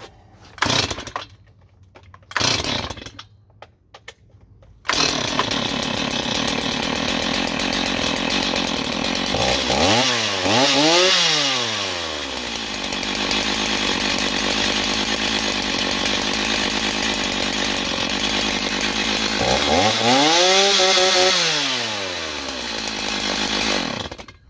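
Stihl MS290 two-stroke chainsaw (57 cc) pull-started: two short pulls on the starter cord, and then the engine catches about five seconds in and runs. It is revved up and back down twice and then shut off near the end. It runs with freshly installed piston rings, its compression restored.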